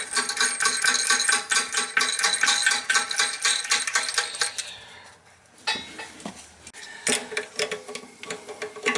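Rapid metallic clicking and clinking as a washer and nut are put on and spun down a brass toilet tank bolt, dense for about four seconds, then dying away to a few scattered clinks.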